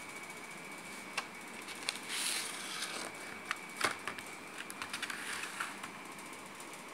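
Plastic blister pack holding a set of hex keys handled and turned over: scattered sharp clicks and a crinkly plastic rustle, loudest about two seconds in, with a run of small clicks in the second half, over a faint steady hiss.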